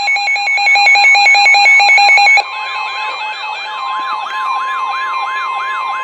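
NOAA Weather Radio warning alarm: a steady 1050 Hz tone mixed with a weather receiver's electronic siren alert. A rapid beeping stops about two and a half seconds in, and a wailing siren sweep repeats about twice a second throughout.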